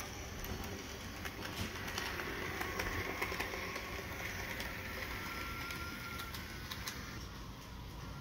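HO scale Bachmann model train running on its track: a steady whir from the locomotive's motor and wheels with scattered sharp clicks, loudest about three seconds in as it passes close by.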